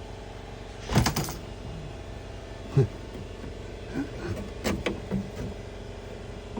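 Small metal clicks and rattles from a Jeep TJ Wrangler door lock being worked into its retaining clip inside the door: a quick cluster of clicks about a second in, a single knock near three seconds, then several lighter taps.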